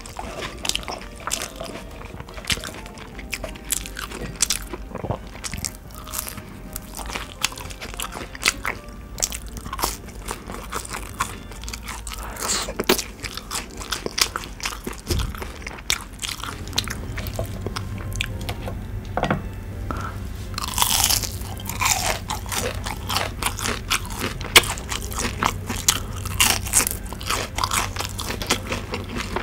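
Close-miked chewing of crispy fried coconut shrimp: the breading crunches and crackles in quick, irregular bites, with wet mouth sounds in between.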